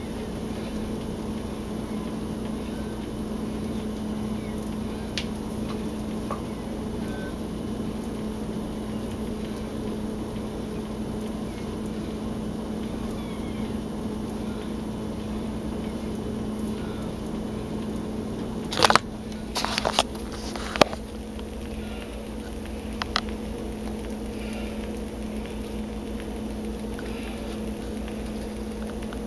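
Steady low hum, like a running appliance, with a few sharp clicks and knocks about two-thirds of the way through.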